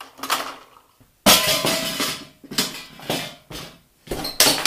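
Metal computer parts clanking and clattering on a workbench: a run of knocks, the loudest about a second in with a short metallic ring, then several smaller clanks.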